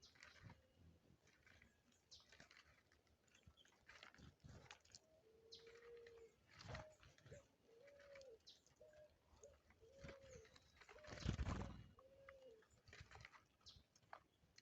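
A dove cooing: a run of short, low, arched coos repeated over several seconds, with small birds chirping faintly. A brief, louder rustling noise comes a little past the middle.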